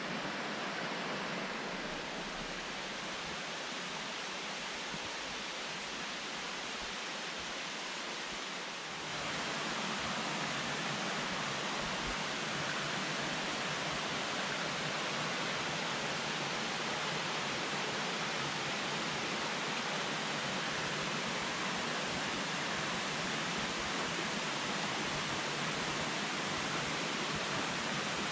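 Rushing water of a jungle stream tumbling over small rocky cascades, a steady hiss that gets a little louder about nine seconds in.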